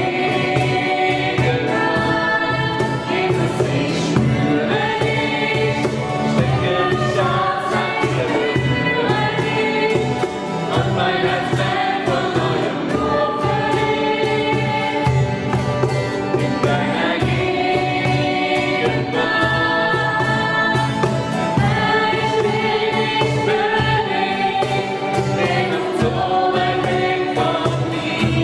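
Two female voices singing a song together, backed by acoustic guitar, electric bass and cajon keeping a steady beat.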